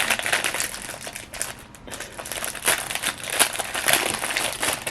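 Plastic packaging bag crinkling and crackling in irregular bursts as it is handled to get the fidget toys out.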